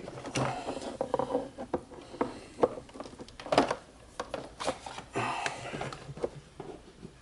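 Handling noise from a laptop power cord and its plug being moved about on a desk: irregular clicks, knocks and rustles, the loudest knock about three and a half seconds in.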